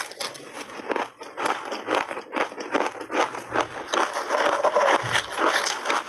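Close-up crunching and chewing of mouthfuls of shaved ice with milk powder, a dense run of crisp crackles, with a spoon scraping in a plastic bowl.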